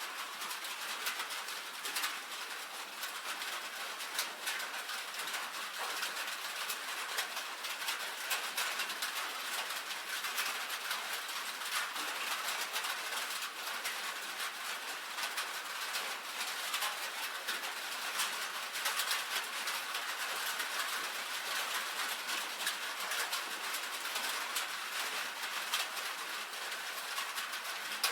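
Steady rain on a tin roof: a dense, even patter of countless small drop impacts on the metal sheeting, with sharp little ticks standing out all through.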